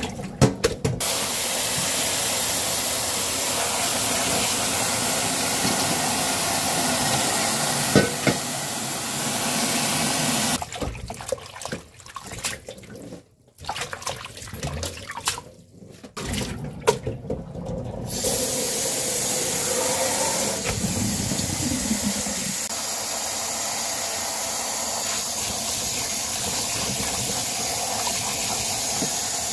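Tap water pouring into a stainless-steel bowl in a sink while hands swish and rinse prickly lettuce leaves in it. The flow stops for several seconds about halfway through, leaving only splashing of hands among the leaves, and then runs steadily again.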